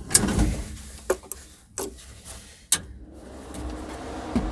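Low rumble inside the cab of the V10-powered Kaiser Jeep M715 truck, with about five sharp clunks and clicks in the first three seconds, the loudest near the three-second mark, then a steadier stretch.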